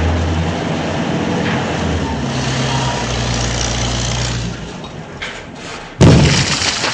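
Heavy vehicle engine running steadily, easing off and going quieter about four and a half seconds in; a loud, sudden noise breaks in about a second before the end.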